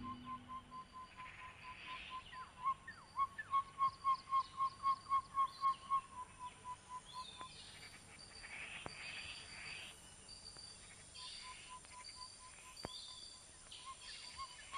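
Faint outdoor nature ambience: a run of short, even piping calls on one pitch, about three a second, that breaks off about halfway and starts again, over scattered higher chirps and thin regular ticking.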